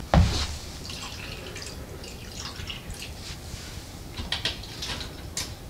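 A thump, then irregular drips and small splashes of water into the stainless steel tank of an ultrasonic cleaner as it is topped up.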